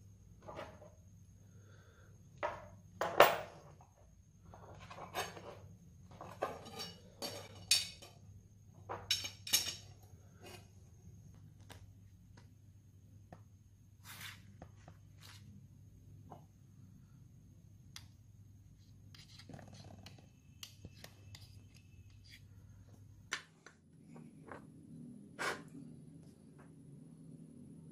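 Brass bolster pieces and a steel knife blade clicking and clacking as they are handled and set down on a hard table. A quick run of sharp knocks fills the first ten seconds, the loudest about three seconds in, then only scattered taps follow over a faint steady hum.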